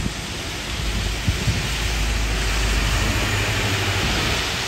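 A London bus passing on a wet road: a low engine rumble builds about a second in and holds over a steady hiss of tyres on the wet surface.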